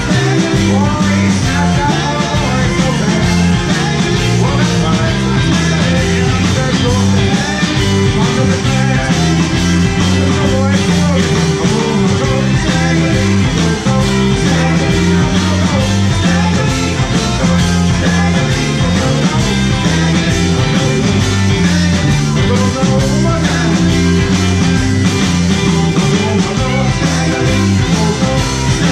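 Live band playing a rock and roll number, with electric guitar over a steady beat.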